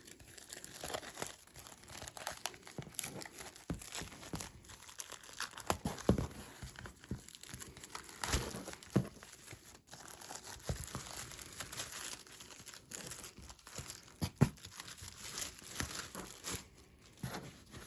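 Plastic wrapping of a comic book pack being torn open and handled, with irregular crinkling and sharp crackles throughout.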